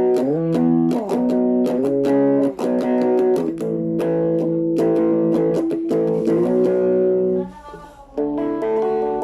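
Thomson Stratocaster electric guitar played through a Laney amplifier, strumming a rhythmic run of chords that change every second or so, with a short break about three-quarters of the way through before the strumming resumes.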